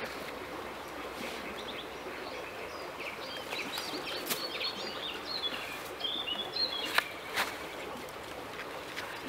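Small birds chirping and singing in the trees over a steady outdoor hiss, with a few sharp knocks, the loudest about seven seconds in.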